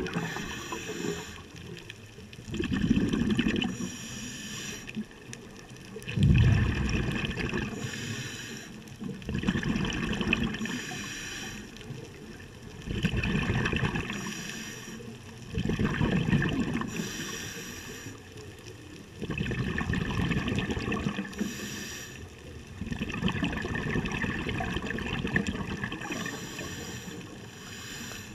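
Scuba diver breathing through a regulator underwater: a hiss on each inhale, then a burst of exhaled bubbles, about every three and a half seconds.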